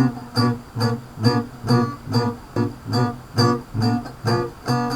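Acoustic guitar strummed in a steady rhythm, a little over two chord strokes a second, with a chord left ringing near the end.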